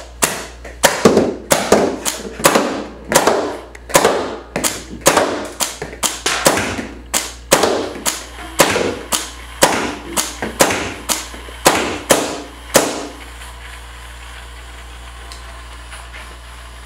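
Paintball marker firing rubber reballs in rapid succession, a sharp pop about twice a second, each with a short ringing tail; the firing stops about thirteen seconds in, leaving a steady low hum.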